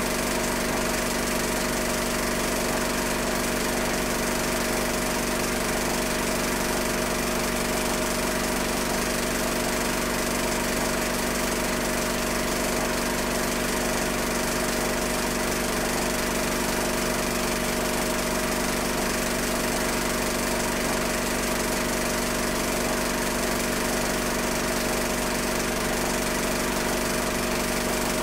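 Steady, unchanging machine-like drone with hiss and a constant hum. It does not change as the streetcar approaches or at the cut, so it is noise in the recording or transfer rather than the streetcar itself.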